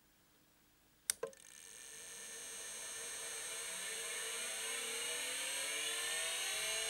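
Seagate ST-251-1 40 MB MFM hard drive starting up: two sharp clicks about a second in, then the spindle motor spinning up. Its whine of several tones rises steadily in pitch and grows louder.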